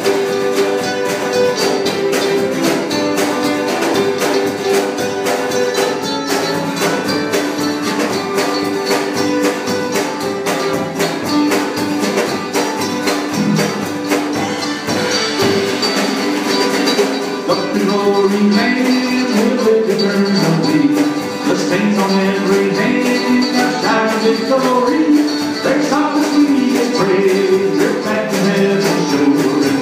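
Small live band playing a song: strummed acoustic guitar, mandolin and a drum kit, with steady cymbal strokes.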